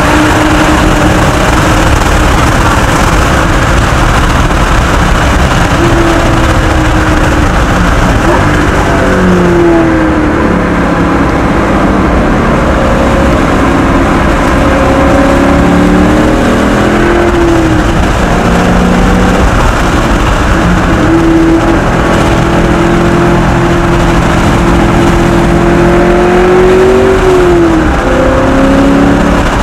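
1999 Ford Mustang SVT Cobra's 4.6-litre DOHC V8 running hard, heard from inside the cabin, loud throughout. Its pitch climbs under acceleration and drops away sharply several times, most clearly about nine seconds in and near the end.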